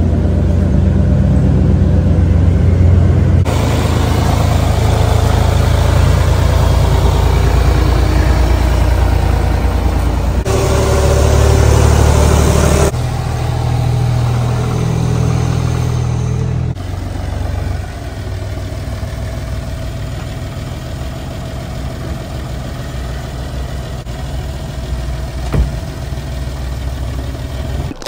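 Pickup truck engine running while it tows a trailer, heard as a string of short clips that cut abruptly from one to the next. Each clip holds a steady low engine drone.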